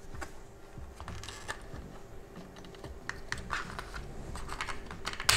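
Small plastic clicks and taps of a replacement warning-buzzer speaker being handled and fitted onto the circuit board of a VW instrument cluster. The clicks come thicker in the second half, with one sharper click near the end.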